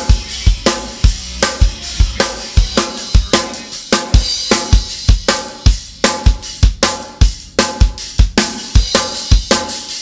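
Acoustic drum kit played live: a steady, fast rock beat of kick drum and snare under ringing cymbals.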